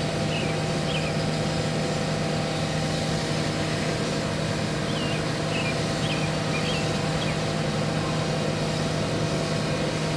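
Steady low outdoor hum with birds chirping now and then. The siren is not yet sounding.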